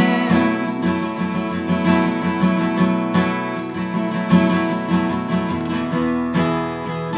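Acoustic guitar strummed in a steady rhythm, playing a song's closing instrumental passage. The chords ring on and grow a little quieter toward the end.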